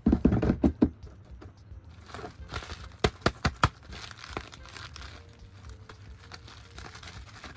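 Toy packaging being crinkled and torn open by hand, with a dense run of crackling in the first second and a few sharp clicks about three seconds in.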